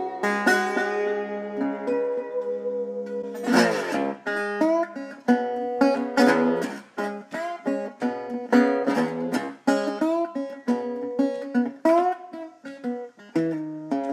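Background music: acoustic guitar picking a tune, note by note, with a strummed flourish about three and a half seconds in.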